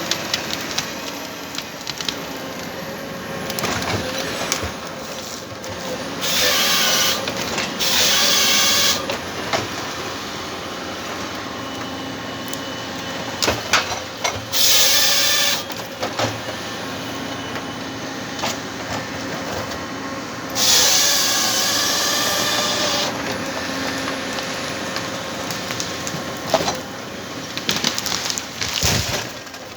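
Komatsu 931 XC forest harvester running steadily, with four short bursts of harsh hissing noise, each one to two and a half seconds long, as the C144 harvester head saws through stems.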